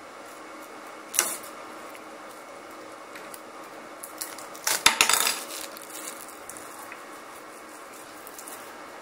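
Handling noise from a switched-off Wahl Home Pro Basic hair clipper: a single sharp click about a second in, then a louder short clatter of hard plastic and metal about five seconds in, over a steady low hiss.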